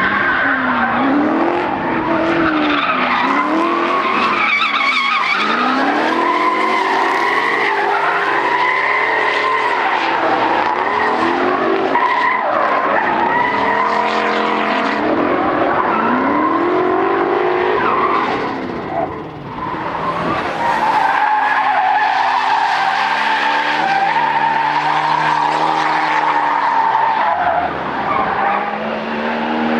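Drift car engines revving hard, the pitch rising and falling again and again as the throttle is worked, over the steady squeal of sliding tyres. The sound drops away briefly about two-thirds of the way through.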